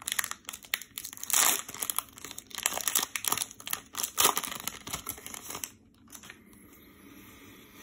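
Foil wrapper of an Upper Deck baseball card pack being torn open and crinkled by hand: irregular crackles and rustling bursts that die down about six seconds in.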